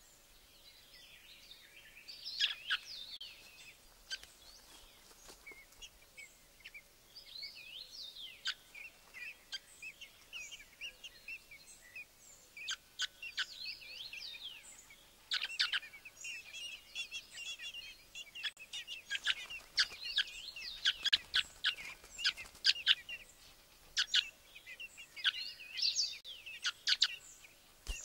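Small birds chirping and squeaking: many short, high-pitched calls in clusters, thickest about two-thirds of the way through.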